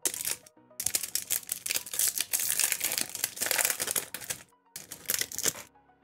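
Foil wrapper of a Pokémon Evolving Skies booster pack crinkling and tearing open, then the cards sliding out: a long stretch of rustling and a shorter one near the end. Soft background music runs underneath.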